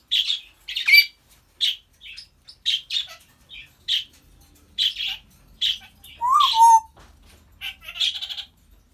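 African grey parrot making a quick run of short, sharp chirps and squawks. About six seconds in comes one clear whistle that rises and then falls.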